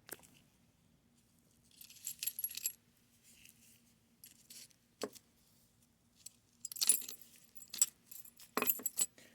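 Small metal locks and keys being handled, clinking and jingling in short bursts with single sharp clicks between them. The busiest clinking comes near the end.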